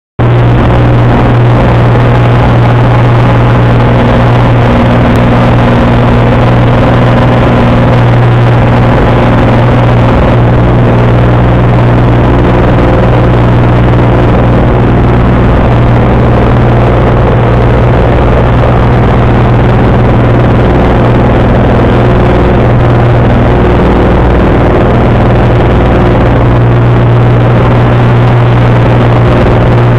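A Cessna's single piston engine and propeller running steadily at takeoff and climb power, heard as a loud, constant drone inside the cockpit.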